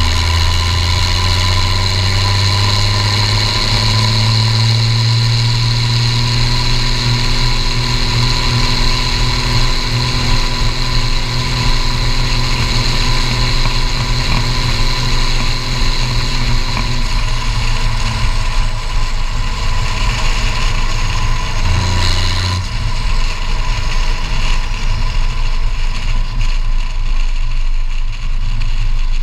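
Case IH 1455XL tractor's turbocharged diesel running under way through a straight-pipe exhaust stack, a steady engine note with a high steady turbo whistle over it. About two-thirds of the way through, the whistle fades and the engine note drops and turns rougher as the tractor comes off the throttle.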